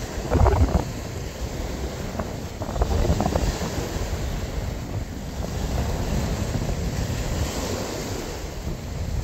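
Wind buffeting the microphone, stronger in gusts about half a second and three seconds in, over waves washing on the shore.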